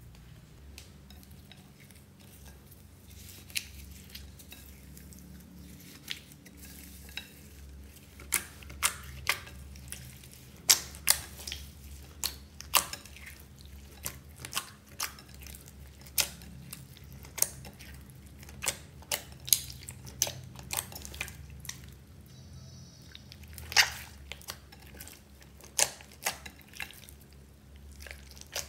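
Clear slime packed with foam beads being kneaded and stretched by hand in a glass bowl, giving irregular sharp clicks and pops, sparse at first and coming thick and fast from about a third of the way in.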